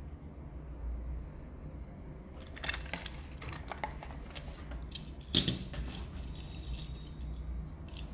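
Handling noises from a small die-cast toy car: a cluster of small clicks and taps, then one louder knock about five seconds in, a few more light clicks near the end, over a low steady hum.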